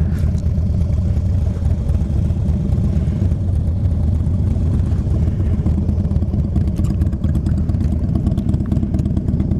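Harley-Davidson Dyna Low Rider S V-twin engine idling steadily.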